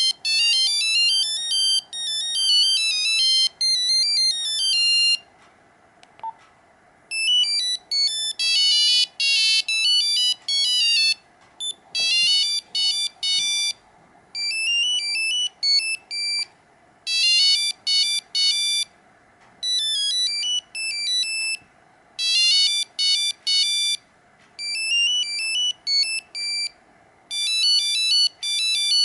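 Nokia 5125 mobile phone playing its built-in monophonic ringtones: high-pitched, beeping single-note melodies in short quick phrases with brief pauses between them.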